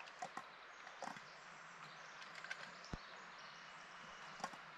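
Quiet forest ambience: a faint steady hiss with scattered light clicks and a few tiny chirps, and a single low thump about three seconds in.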